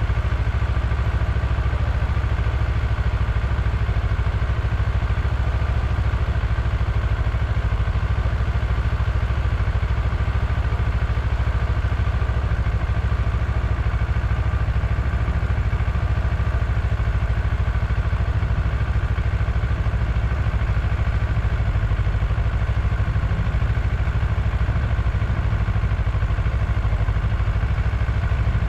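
Vehicle engine running steadily, with a constant low rumble that does not change in pitch or loudness.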